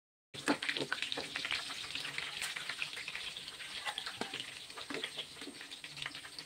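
Fish steaks frying in hot oil in a nonstick pan, a steady sizzle crackling with many small pops, starting abruptly a moment in. A metal slotted spatula scrapes and clinks in the pan as it lifts the fried steaks out.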